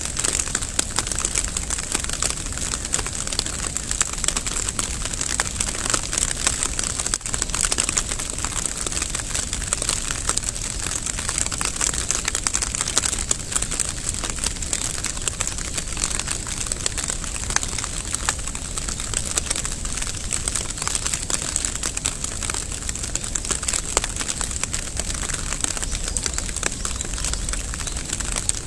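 Steady rain pattering: a dense, even stream of small drop ticks.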